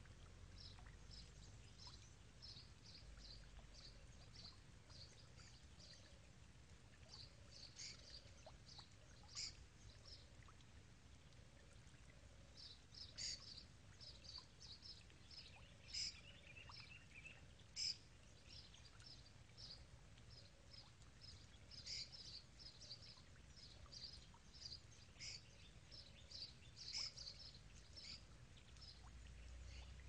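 Faint outdoor nature ambience: many short, high chirps of small calling animals repeating irregularly throughout, with a few louder chirps standing out every few seconds and a brief lower trill in the middle, over a faint low rumble.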